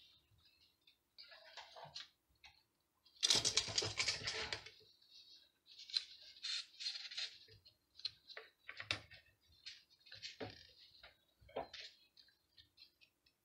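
Hands handling a balsa dowel and small tools on a workbench: scattered taps, clicks and rustles, with a louder burst of rustling lasting about a second and a half some three seconds in.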